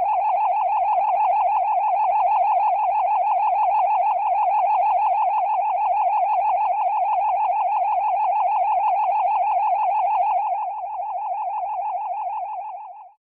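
Synthesized magic sound effect: a loud, sustained tone warbling quickly up and down in pitch over a slow, soft low pulse. It drops in level near the end, then stops.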